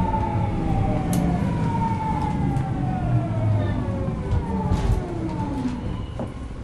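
Tokyu 2000 series train's VVVF inverter motor whine, several tones gliding steadily downward together as the train slows, over the rumble of the wheels on the track. A few sharp clicks sound through it.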